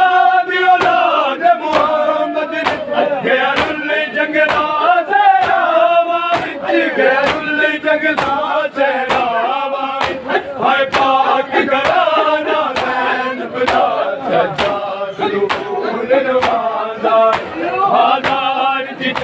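Crowd of men chanting a Punjabi noha in unison over a steady beat of hands slapping bare chests in matam, roughly three slaps every two seconds.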